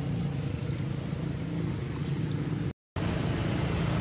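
Steady low engine hum with outdoor background noise. The sound cuts out completely for a split second a little before three seconds in, then resumes unchanged.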